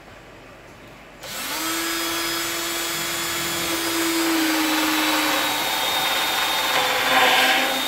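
Ridgid cordless drill spinning a Greenlee Ultra Cutter hole cutter through PVC pipe, cutting a 2-inch hole. The drill starts about a second in and runs steadily with a motor whine that dips slightly midway, growing loudest near the end.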